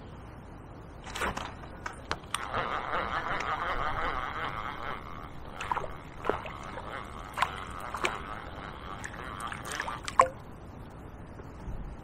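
Water splashing and sloshing with scattered sharp clicks and knocks as a hooked fish is brought in at the bank. The splashing is loudest a few seconds in and dies away before the end.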